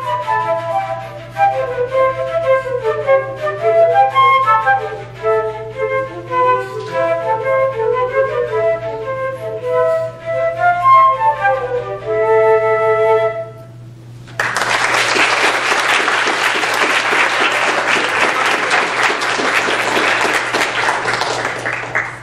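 Two flutes playing a duet in interweaving lines, closing on held notes about 13 seconds in. After a brief pause, an audience applauds until near the end.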